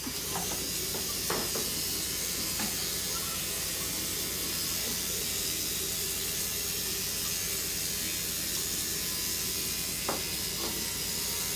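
Bathroom sink tap running steadily into the basin, with a few light knocks.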